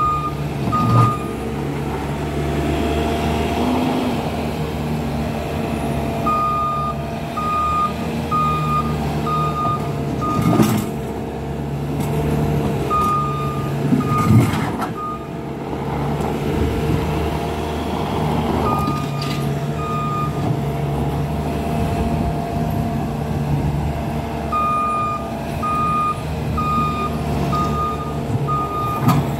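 Bobcat S550 skid-steer loader's diesel engine running steadily, with its reversing alarm beeping about once a second in several spells as it backs up. A few short knocks break in now and then.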